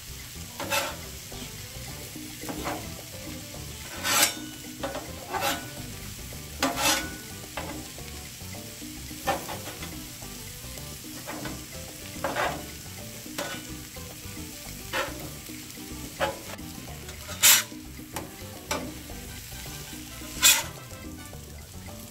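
French toast slices and chicken sausage patties sizzling steadily on a Blackstone 22-inch steel flat-top griddle. A metal spatula scrapes and taps against the griddle top many times at irregular intervals as the food is worked and turned.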